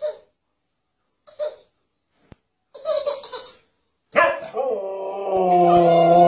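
Siberian husky giving a few short huffing woofs, then about four seconds in breaking into a long, wavering howl-like vocalization.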